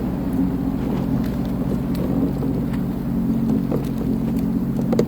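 Sea-Doo Fish Pro personal watercraft's engine running steadily, with a couple of brief knocks near the end.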